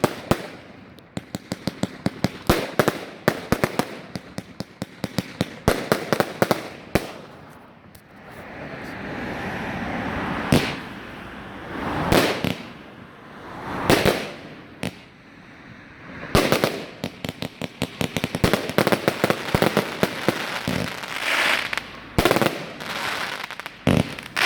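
1.3G compound fireworks cakes firing: rapid runs of sharp shot reports and bangs, with swelling crackle and hiss between volleys. Louder single bursts come about 10, 12 and 14 seconds in.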